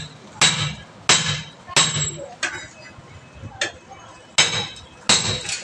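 Hammer striking a steel tyre lever wedged between a tyre and its steel wheel rim to break the tyre loose: about seven sharp, ringing metal strikes, roughly one every two-thirds of a second, with a longer gap near the middle.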